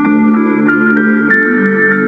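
Instrumental music: sustained keyboard-like chords with plucked notes, changing every half second or so, with no vocals.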